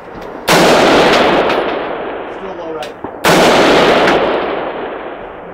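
Two rifle shots, about three seconds apart, each cracking out suddenly and then trailing off in a long rolling echo.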